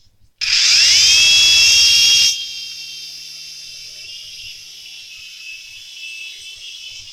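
Toy remote-control helicopter's small electric motors spinning up with a whine that rises in pitch. It is loud for about two seconds, then drops suddenly to a quieter steady whine.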